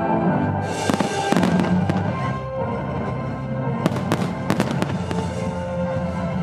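Aerial firework shells bursting with sharp bangs, a few about a second in and a quick cluster around four to five seconds in, over music with long held notes.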